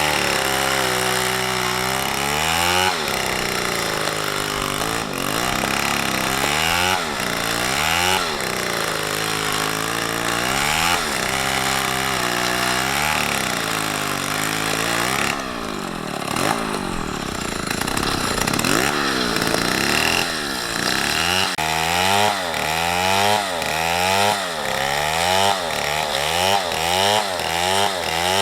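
Chainsaw cutting a tree, its engine revving up and dropping back over and over: every two or three seconds at first, then about once a second near the end.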